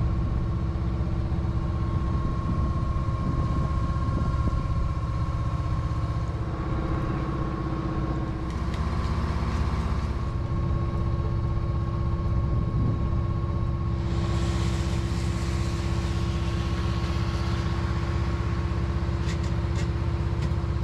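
The boat's engine running steadily under way, a constant drone with a steady hum in it. A broad hiss joins in about two-thirds of the way through.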